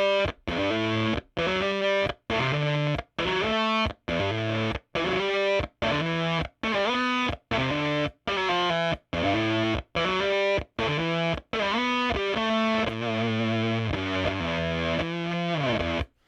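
Electric guitar through a Jext Telez Dizzy Tone V7 fuzz pedal, with the balance knob at halfway, played as short choppy fuzzed chords about twice a second. About two-thirds of the way through it moves to held notes and ends with a downward slide before cutting off.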